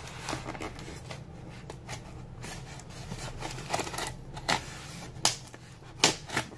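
A knife cutting packing tape around a styrofoam shell, with the squeaks, crackles and scrapes of the foam as a hand grips and presses it. The clicks and scrapes come irregularly, with a few sharper ones in the second half.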